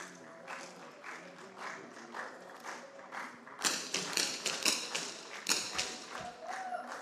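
Shots from several smallbore .22 target rifles, fired at irregular moments by different shooters as short sharp cracks. They come thicker and louder from about halfway through.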